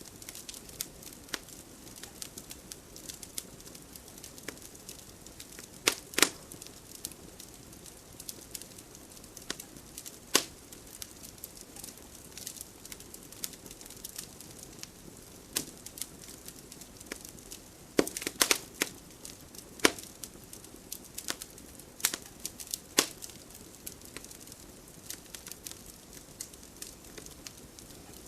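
Wood fire burning in a fireplace: a soft steady hiss under irregular sharp crackles and pops, with a cluster of loud pops a little past the middle.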